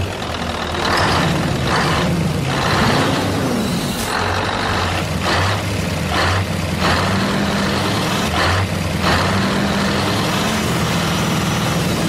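Heavy truck engine running steadily with a low hum, with short hissing bursts every second or so.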